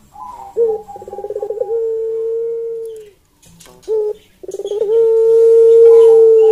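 Barbary dove (ringneck dove, Streptopelia risoria) cooing twice at close range. Each coo opens with a short rapid stutter and then stretches into a long, steady drawn-out note that drops in pitch at its end.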